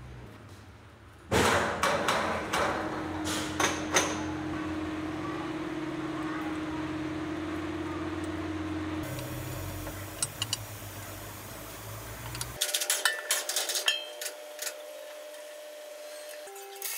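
Metal knocks and clanks from fitting a hydraulic vibration motor onto a road roller's drum housing, starting suddenly about a second in, over a steady hum; the sound changes abruptly to scattered light clicks later on.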